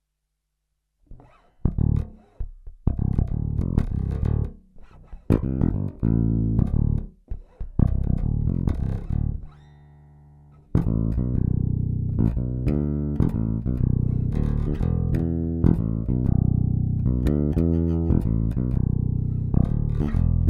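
Cort Space 5 headless five-string electric bass played as a sound test. It begins about a second in with short, sharply attacked notes separated by gaps, holds one softer note around the middle, then runs into a continuous line of notes.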